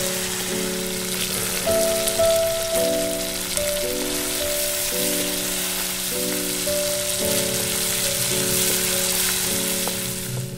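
Chicken curry sizzling in hot oil in a pan while a spatula stirs it, a steady crackle. Soft background music plays underneath with low sustained notes.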